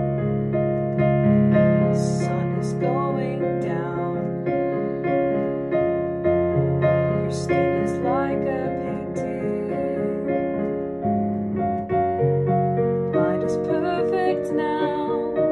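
Digital keyboard on a piano sound, played in held chords under a simple melody, sight-read from sheet music.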